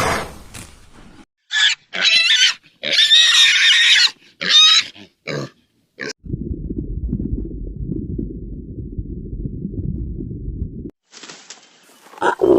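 Pig squealing in several short, high calls, then a low, rough sound lasting about four and a half seconds.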